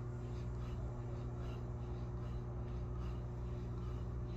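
Quick, rhythmic breathing of a man doing push-ups, about two breaths a second, over a steady low room hum.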